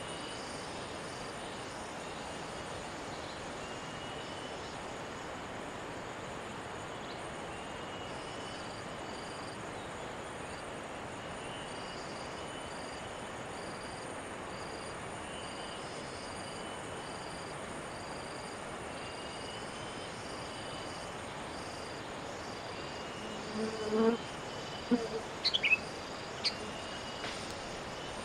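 Steady outdoor noise with an insect chirping high and evenly, about once a second. Near the end come a few louder short sounds, among them a quick falling whistled note.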